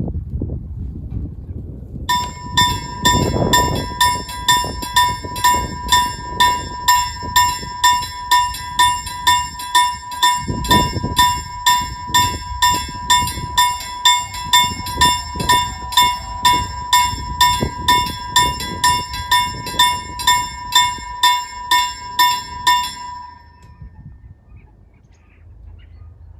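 Level-crossing warning bell striking about twice a second as the full-barrier crossing activates for an approaching train, then stopping near the end once the barriers are down.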